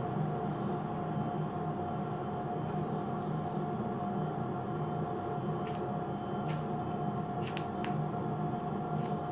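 Steady hum with a constant tone in a small tiled room, and a few short, sharp clicks in the second half as a lump of sticky underarm hair-removal wax is pressed onto and pulled from the skin.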